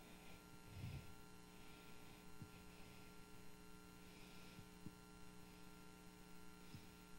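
Near silence: room tone with a steady electrical hum.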